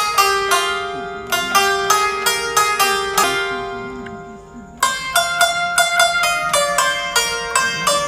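Background music of a quickly plucked string instrument playing a run of picked notes; the notes thin out and fade a little past three seconds in, then resume strongly just before five seconds.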